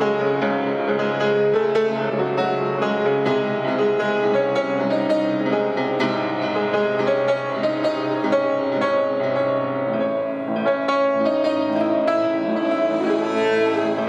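Piano and cello playing an instrumental piece together: struck piano notes over long, held cello notes.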